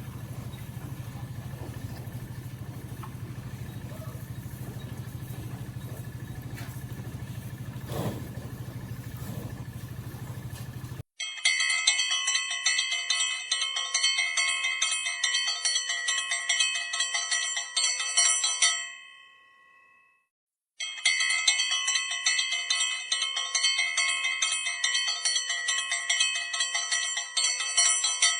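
A steady low mechanical hum, cut off suddenly about eleven seconds in. It is replaced by a loud, fast, pulsing ringing with many bright tones, which plays twice for about eight seconds each time with a short silent gap between.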